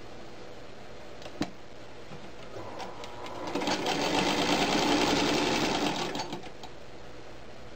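1937 Singer Model 127 sewing machine, driven by its electric motor, stitching through fabric: it starts up a little under three seconds in, runs at speed for about three seconds, then slows and stops. A single sharp click comes about a second and a half in, before it starts.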